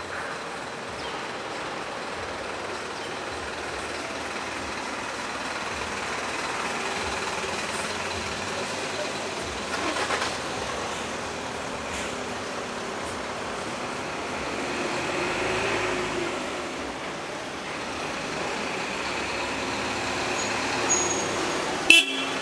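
City street traffic: motor vehicles running and passing, with one louder vehicle going by about fifteen seconds in. A sharp click comes near the end.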